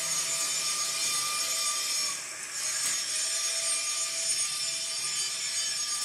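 Model trains running on a layout: a steady hiss with a faint hum that drops out for about a second around two seconds in.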